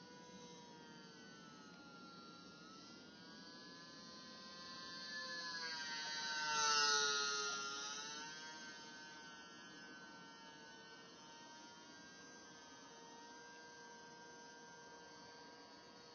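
RC model Icon A5 seaplane's motor and propeller, a steady whine in flight that swells to its loudest about seven seconds in as the plane passes close, the pitch dropping as it goes by, then fades back to a distant whine.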